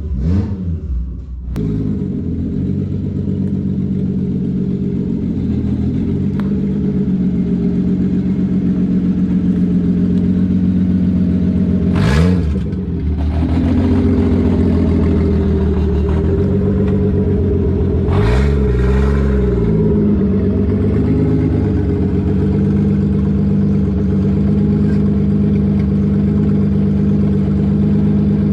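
Toyota MKIV Supra's engine idling steadily, with the throttle blipped into short revs a couple of times near the start, again about twelve seconds in, and once more a few seconds later.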